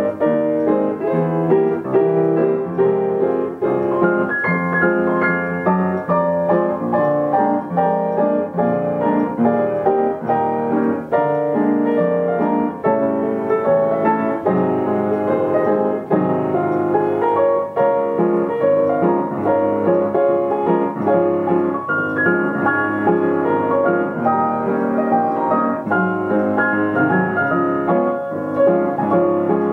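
Yamaha upright piano playing a continuous stream of notes and chords in a popular old tune, with no one at the keyboard: a self-playing piano.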